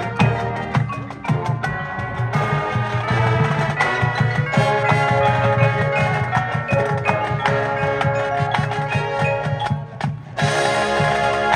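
Marching band playing, with mallet percussion and drums prominent in a steady rhythm. The sound drops briefly about ten seconds in, then the full ensemble comes back in.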